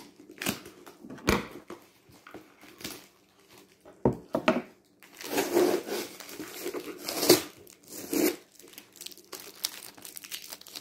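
Tape being picked at and peeled off a cardboard shipping box, with crinkling, tearing and a few knocks from the box being handled. The loudest stretch of tearing comes a little past halfway through.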